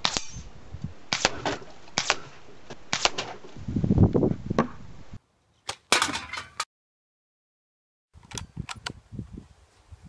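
Airgun shooting: a series of sharp cracks and clicks, with a low thump about four seconds in. Several short clips are joined by abrupt cuts, with two short silences between them.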